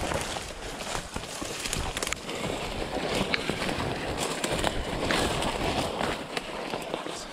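Footsteps and rustling of leaves and branches as a person moves quickly through forest undergrowth: an uneven crackle of twigs and brushing foliage.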